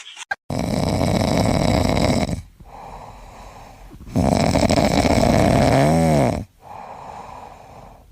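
Loud snoring: two long snores of about two seconds each, with quieter breathing between them. The second snore ends in a whistle that rises and falls in pitch.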